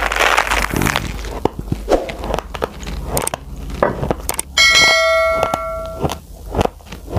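Raw uncooked rice grains crunching between the teeth as a full mouthful is chewed: a dense run of small sharp cracks and clicks. Partway through, a bright bell-like ding rings for about a second and a half, then cuts off.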